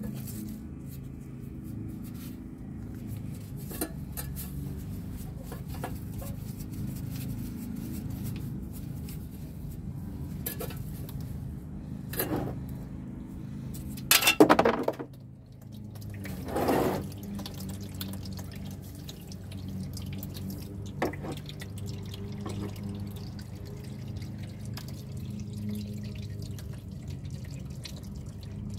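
Automatic transmission fluid draining from a 2006 Mazda 3's transmission, dripping and trickling down a metal shield into a plastic drain pan. Two louder clattering bursts come about halfway through.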